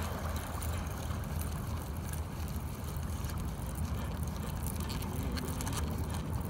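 Steady low outdoor rumble of wind and water at the shoreline, with a few faint ticks near the end.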